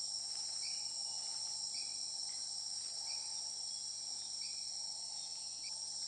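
Dense forest insect chorus: a steady high-pitched shrill at two pitches, with short, lower chirps repeating about once a second.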